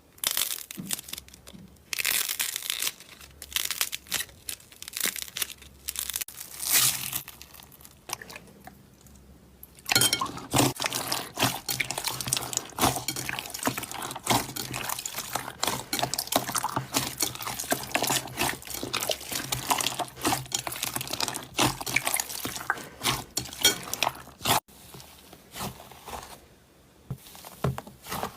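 Slime being squished and pressed by hand, giving dense wet clicks and pops that die down twice before picking up again.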